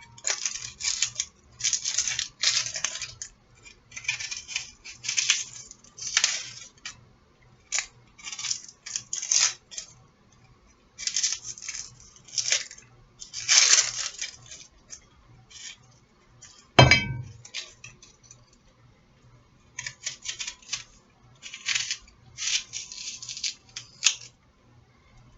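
Kitchen utensils and dishes scraping and clinking in short, irregular bursts, with one sharp knock about two-thirds of the way through.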